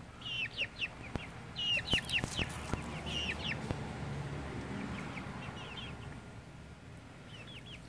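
Young Cornish Cross and Australorp chickens peeping: short, high, falling calls in quick clusters, busiest in the first half and thinning out towards the end.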